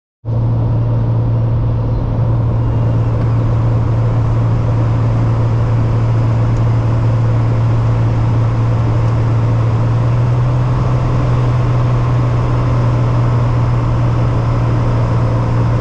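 Single-engine propeller plane's engine and propeller droning steadily inside the cabin on approach to land: a loud, low hum over a rush of wind noise. The hum rises slightly in pitch about ten seconds in.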